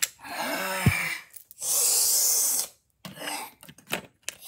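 Vocal sound effects made with the mouth: first a rough, breathy noise with a knock about a second in, then a loud hiss lasting about a second, with faint clicks near the end.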